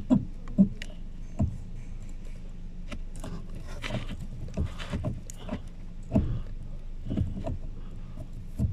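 Short metal clicks and knocks, about ten, irregularly spaced, as the new steering intermediate shaft's universal joint is worked by hand onto the splined steering shaft, over a steady low hum.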